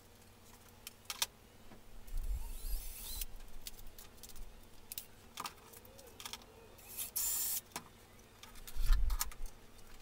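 Plastic case panels of a Tascam Porta 02 MKII cassette recorder being handled and turned over on a workbench: scattered clicks and light rattles, short scrapes, and a couple of dull bumps.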